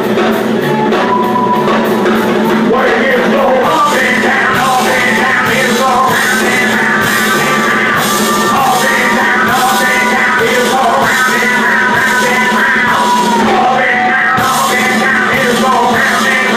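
Loud rock music with singing, dense and steady, with drum hits running through it.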